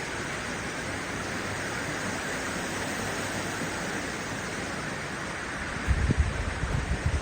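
Steady rush of creek water in a slot canyon. A short run of low thumps comes about six seconds in.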